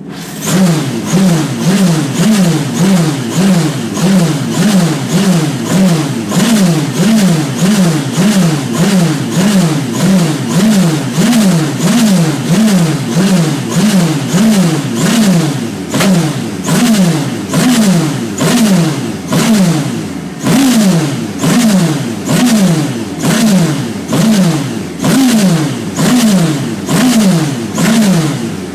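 Radical SR3's engine running on a dyno with a misfire. Its note surges up and drops back in a steady rhythm, about one and a half times a second.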